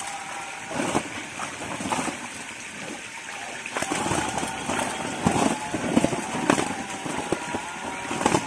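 Live fish thrashing and splashing in shallow water inside a seine net crowded with fish, with irregular splashes as hands grab fish out, busiest about halfway through.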